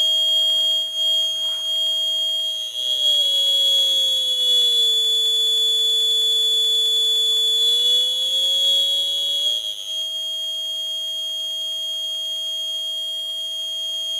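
Homemade oscillator driving a passive piezoelectric buzzer through a mains filter transformer, modulated by an automatic colour-changing LED, sounds a loud steady high-pitched tone. Under it a lower tone slides down about three seconds in, holds, then slides back up around the ten-second mark.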